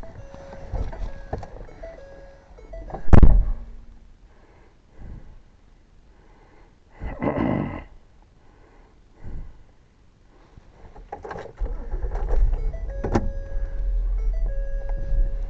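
A vehicle door shuts with a loud thud about three seconds in. From about eleven seconds a vehicle engine runs with a steady low rumble.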